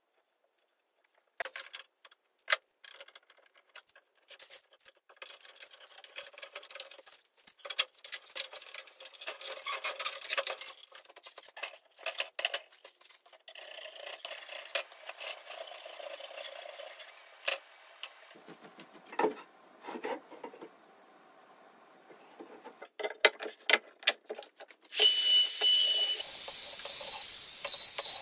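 Bar clamps and wood being handled during a glue-up of an oak end-grain cutting board: irregular clicks, knocks and scraping of metal on wood. About three seconds from the end a handheld router starts up and runs loudly with a high whine.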